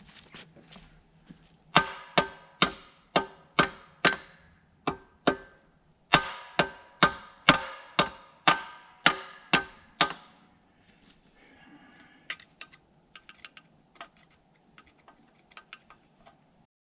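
Hammer blows on steel at the bucket linkage of a Bobcat 325 mini excavator: about seventeen sharp, ringing metal strikes, about two a second, with a short pause midway. Lighter, scattered metal taps and clicks follow.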